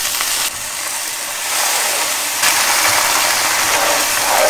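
White wine poured into a hot sauté pan of caramelized onions, sizzling and hissing loudly as it boils off to deglaze the pan. The sizzle grows louder about a second and a half in.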